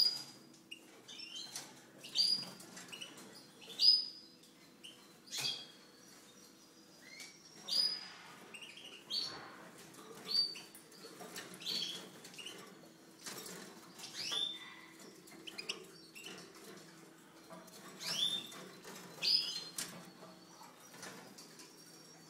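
Small caged finches calling with short, sharp chirps, about one every second and a half, with wing flutters among them.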